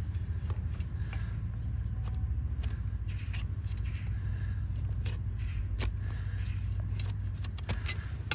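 A broad, flat steel paring blade shaving the sole of a donkey's hoof, making irregular sharp scrapes and clicks over a steady low rumble.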